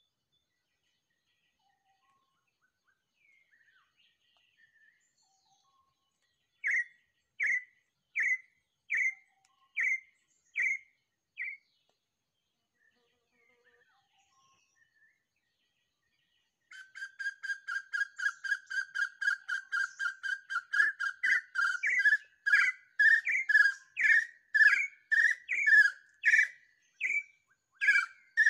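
Bird calls: seven whistled notes a little under a second apart, then, after a pause of several seconds, a fast run of short notes on one pitch, soon joined by louder, slower calls that are still going at the end.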